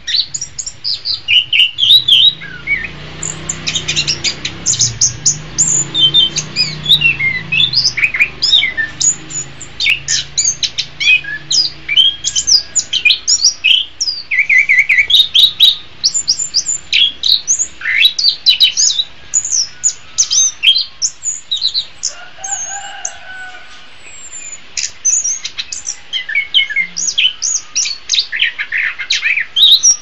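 Chestnut-capped thrush (anis kembang) singing a fast, unbroken run of high, varied whistled and chirping notes, with a brief lull about two-thirds through before the song picks up again.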